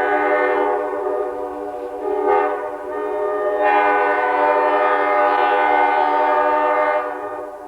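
Diesel locomotive air horn blowing a long, loud chord. It swells briefly about two seconds in and again from about three and a half seconds, then eases off about seven seconds in.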